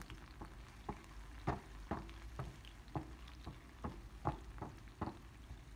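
Diced onion and red bell pepper sizzling in oil in a nonstick frying pan while a wooden spatula stirs them, scraping and knocking against the pan in irregular clicks about twice a second.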